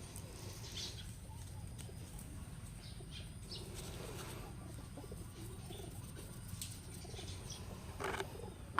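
Faint bird calls over a steady low rumble, with no grinder running.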